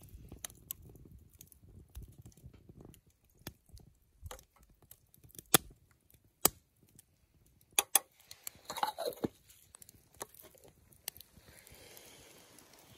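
A metal spoon stirring liquid in a black enamel kettle, clinking sharply against the pot every second or so, with a brief scrape about nine seconds in.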